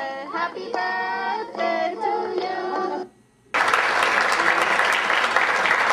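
A group of children singing together; the song cuts off about three seconds in. After a short silence an audience breaks into applause.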